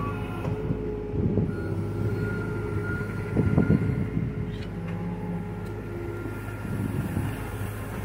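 John Deere compact excavator's diesel engine running steadily as the machine works, with a thin high hydraulic whine for a couple of seconds and short clattering bursts about a second in and again after three seconds.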